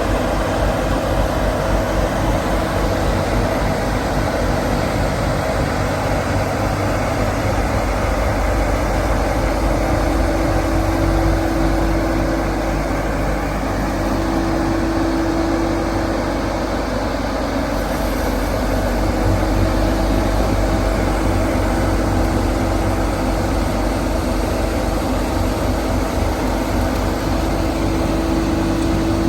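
Engine of a snow-clearing machine running steadily, with a humming tone that swells now and then.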